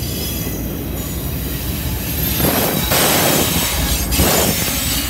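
Double-stack freight train rolling past at close range: a steady, thin, high wheel squeal over a constant rumble of wheels on rail. Two louder rushing surges come through in the middle and near the end, as a diesel locomotive in the consist passes.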